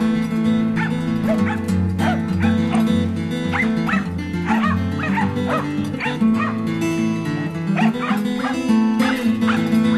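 Australian kelpie barking again and again in short, high barks over music.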